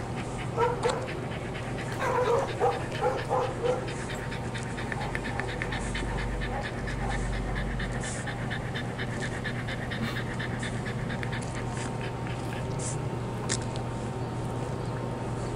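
A dog panting quickly and rhythmically as it walks. A few short pitched calls stand out, once just under a second in and several times about two to four seconds in.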